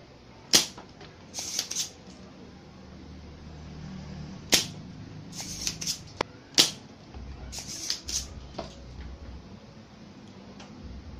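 Spring-loaded desoldering pump (solder sucker) firing as solder is drawn off the flyback transformer's pins: three loud sharp snaps of the released plunger, with clusters of smaller clicks and rattles in between as the pump is cocked and handled.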